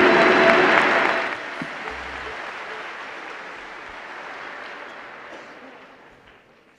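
Audience applauding as the music ends, loud for about the first second and then dying away over the next few seconds.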